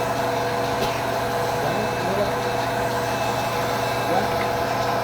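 A steady machine drone with several held tones, unchanging throughout, under faint voices.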